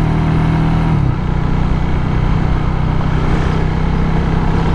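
Motorcycle engine running steadily in traffic, its pitch dropping slightly about a second in, under a steady rush of road and wind noise.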